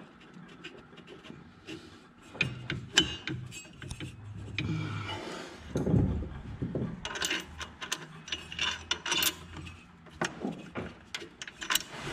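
Irregular metal clicks, scrapes and light knocks as a mower-deck clutch and its keyed adapter are worked onto an engine crankshaft by hand, with a louder knock about six seconds in.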